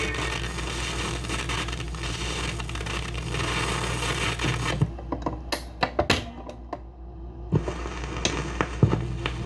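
1951 RCA Victor 45-rpm record changer cycling between records. First comes a steady hum and hiss of the stylus in the run-out groove, then from about halfway a run of sharp mechanical clicks and clunks as the next 45 drops from the spindle and the tonearm swings back and sets down, with a last click just before the next song starts.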